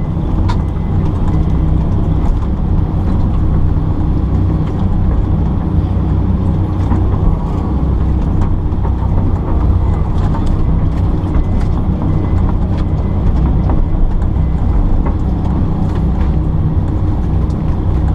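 Kobelco excavator's diesel engine running steadily at working speed, with scattered clicks and knocks from the machine at work.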